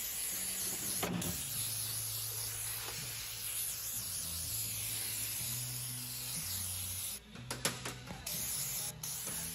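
Aerosol can of rust-protection spray hissing in a long steady burst onto a car's underbody. It stops about seven seconds in, then comes back as a few short spurts and a final burst near the end.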